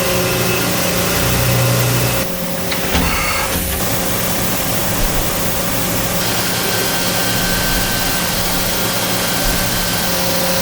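CNC mill-turn lathe running through a machining cycle: a steady machine hum under an even hiss, which changes briefly a little over two seconds in.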